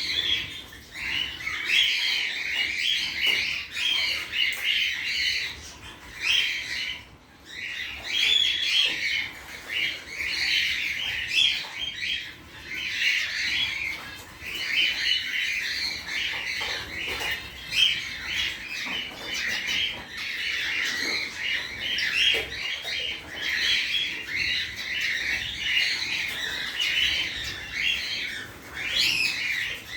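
Gouldian finches chirping and twittering in a dense, continuous chatter of short high calls, with a brief lull about seven seconds in.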